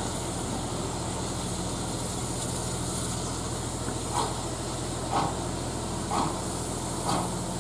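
Steam-hauled train heard from an open carriage window, a steady hiss and rumble as it slows under the brakes for another stop, with a few faint short blips about once a second in the second half.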